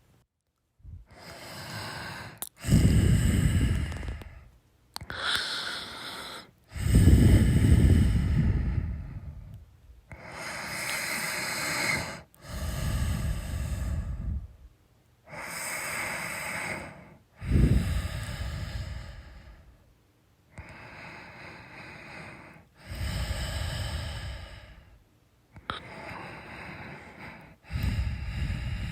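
A sleeping person snoring: slow breaths in and out in turns, about five full breath cycles, the louder strokes carrying a strong low rumble.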